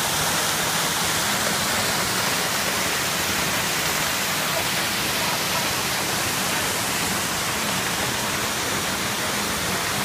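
Waterfall pouring onto rocks close by: a steady, loud rush of falling and splashing water.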